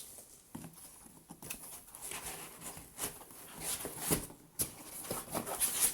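Irregular rustling and light clicks and knocks of 3D printer parts and their packaging being handled during unboxing.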